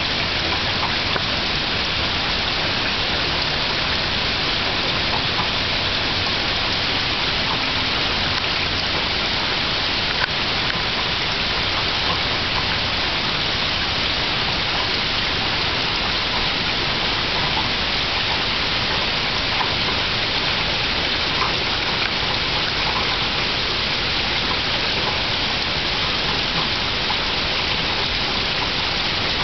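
Gentle rain falling steadily on the leaves of woodland trees: an even hiss with faint scattered ticks of single drops.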